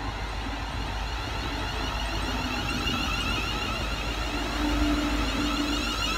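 Greater Anglia Class 360 electric multiple unit running close alongside the platform: a steady rumble of wheels on the rails with a high hiss over it, a little louder about four seconds in.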